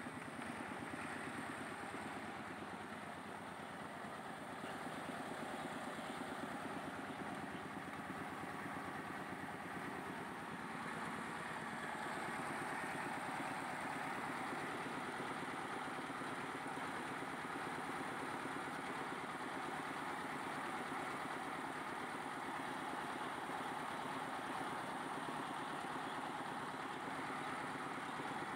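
Truck-mounted mobile rice mill running steadily under load, its engine and milling machine giving a dense, even mechanical noise. Rice that has already been milled once is going through a second time to whiten it.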